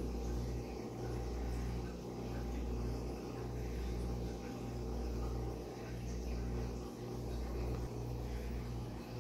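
Steady low electrical hum of an aquarium pump, with a slight dip in level about once a second.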